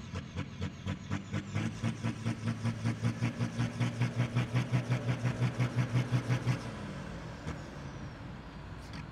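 Tractor diesel engine held at high revs for about five seconds with a strong drone and a high whine that climbs as it spools up, then let off sharply near the end, the whine falling away. A regular ticking, a few strokes a second, runs through it.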